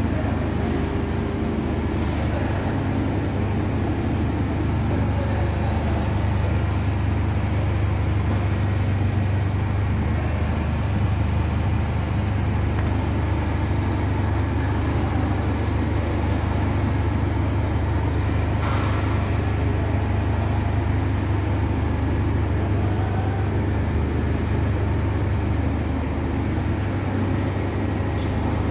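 Steady low machine hum, with a brief higher-pitched sound about two-thirds of the way through.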